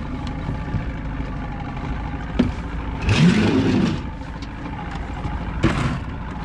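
Boat engine idling steadily, with a louder, rough burst of noise about three seconds in and a couple of sharp knocks, one before the burst and one near the end.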